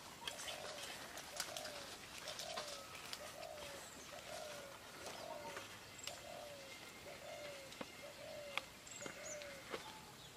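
A bird calling the same short, low, hollow note over and over, about three calls every two seconds. Under it are light rustling and clicks from hands mixing shredded banana flower in an aluminium pot.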